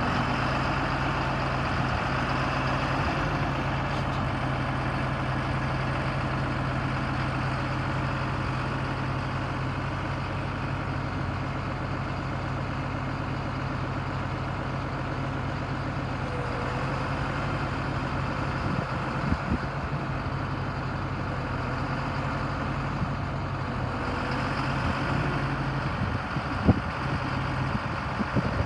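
John Deere tractor's diesel engine idling steadily, with a few sharp knocks near the end.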